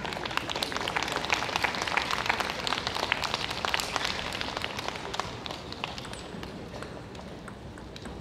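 Audience clapping after a rally, many hands at once, thinning out and fading over the last few seconds.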